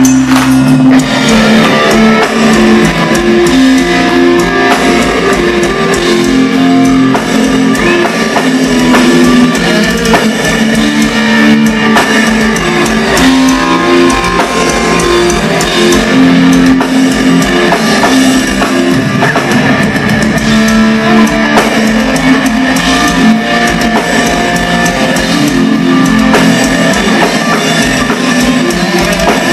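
Thrash metal band playing live and loud: electric guitars chugging a repeating riff over a pounding drum kit.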